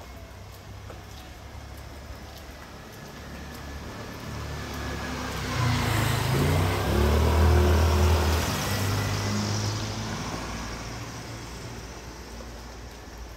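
A motor vehicle approaching, passing close by and driving away. Engine and tyre noise swell over several seconds, are loudest around the middle, then fade, with the engine note dropping as it goes past.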